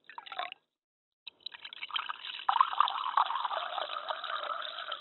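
Water poured into a glass. A brief splash, a short pause, then a steady pour from about a second and a half in, its tone rising slightly as the glass fills.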